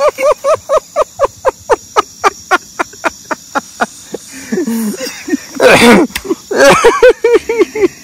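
A man laughing in a long run of breathless, voiced "ha-ha" pulses, about five a second, fading off, then a loud outburst and another run of laughs near the end. Night insects keep up a faint steady trill underneath.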